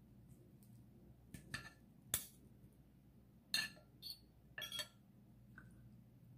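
Metal spoon and fork clinking and scraping against a ceramic dinner plate while food is cut and scooped: a series of short, sharp clinks, the loudest a little after two seconds in, over a faint steady room hum.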